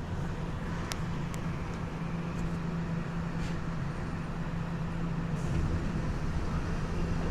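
Steady hum over a low rumble inside a Nagoya Municipal Subway 3000 series car, from its Mitsubishi pressure ventilation fans and the running train, with a few faint clicks.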